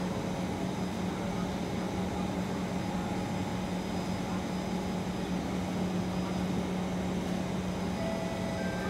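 Steady hum and rumble aboard an SMRT Kawasaki C151 metro train, with faint high steady whine tones coming in near the end.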